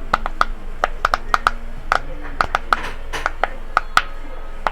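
A quick, irregular run of sharp, bright clicks, about four a second, like small hard objects being handled or tapped by hand, over a faint steady hum.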